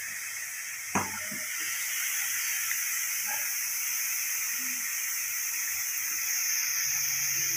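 Besan sev (omapodi) strands deep-frying in hot oil in a metal kadai: a steady sizzling hiss. One brief knock about a second in.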